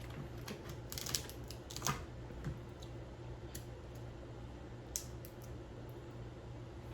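A few faint, scattered clicks and crackles of hands working through a seafood boil, cracking and picking apart crab shells.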